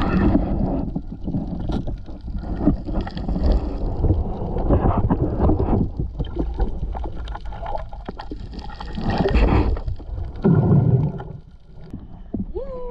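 Muffled water noise from a camera held underwater: sloshing and gurgling, with scattered knocks.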